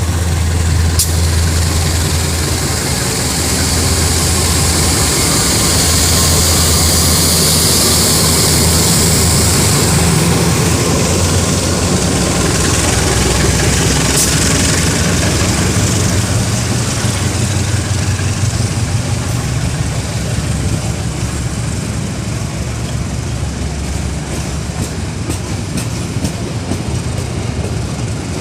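Diesel locomotive engine running loudly under power as a passenger train pulls away from a station, a steady low drone with a strong hiss above it for several seconds in the first half; the sound eases a little in the second half.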